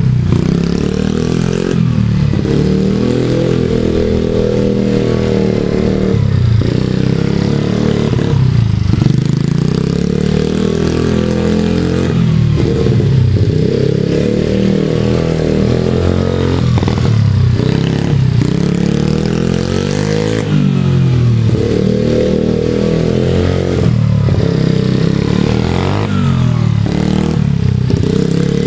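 Motorbike engine running under way and revving up and dropping back repeatedly, its pitch rising and falling every few seconds.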